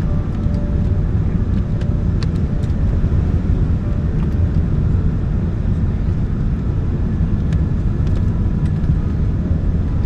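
Steady low rumble of a jet airliner heard inside the cabin, with a few faint clicks along the way.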